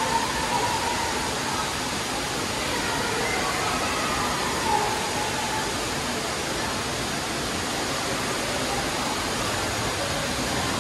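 Steady rushing noise of an indoor water park hall, the wash of running water and air filling the space, with faint children's voices now and then.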